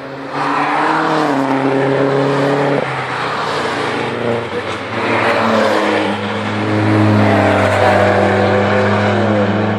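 Several cars driving past one after another at speed on a race circuit, their engine notes rising and falling as each goes by, loudest around seven seconds in.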